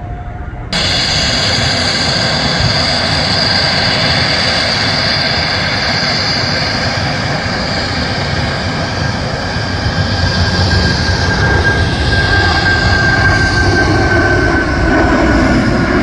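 Airliner jet engines at high power: a loud, steady roar with a high whine, growing louder and deeper in the second half, with a faint tone falling slowly near the end.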